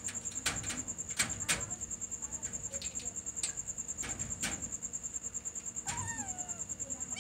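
Crickets chirping steadily in a high, rapid pulse, with several sharp clicks and rattles in the first half as a cat paws at a wire-mesh metal gate. A short falling meow about six seconds in.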